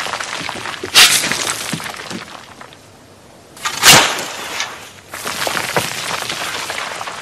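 Digging in loose, crumbly soil: gritty crunching and shifting dirt, with two sharp strikes, about one second in and about four seconds in.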